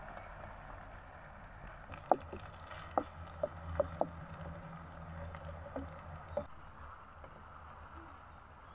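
Wooden spatula knocking and scraping against a metal cooking pot as a thick tomato-and-eggplant mixture is stirred over a campfire. There are a handful of sharp knocks between about two and six and a half seconds in.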